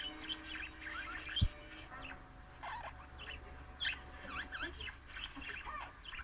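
Budgerigar warbling and chattering: a steady stream of quick chirps and short rising and falling whistles. One dull low thump about a second and a half in.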